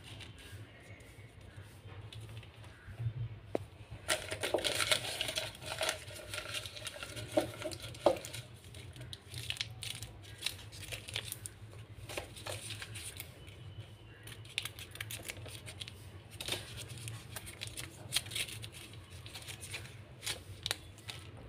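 Paper crinkling and rustling as it is folded and squeezed in the hand, loudest from about four to eight seconds in, with scattered sharp clicks and shorter rustles after.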